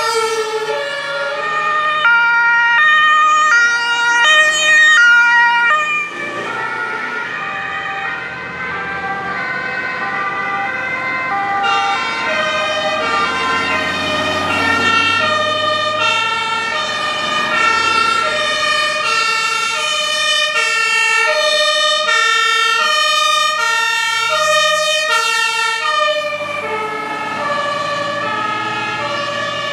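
Several German two-tone emergency-vehicle sirens (Martinshorn) sounding at once, each stepping back and forth between two pitches at its own pace, with vehicle engine noise underneath partway through.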